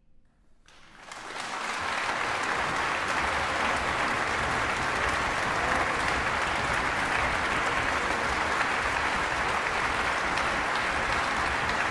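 After a moment of near silence, audience and orchestra break into applause about a second in. The clapping swells within a second to a steady, dense level and holds there.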